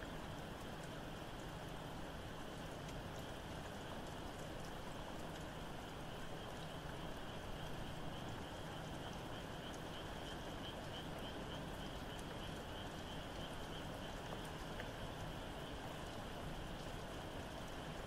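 Steady rain with scattered fine drip ticks, under a distant frog chorus that holds a continuous high trill. The trill pulses most clearly in the middle.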